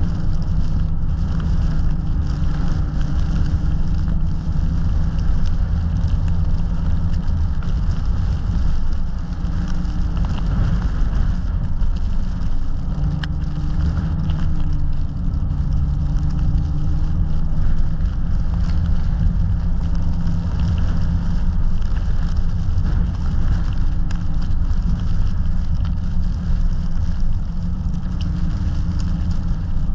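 A car driving on a snowy road: a steady low rumble of engine and tyres, with an engine hum that drifts slightly up and down in pitch.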